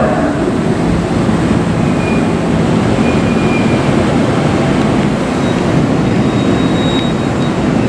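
Seibu 20000 series electric train pulling into a station platform: a steady rumble of wheels and running gear as it comes in, with a few faint, brief high squeals.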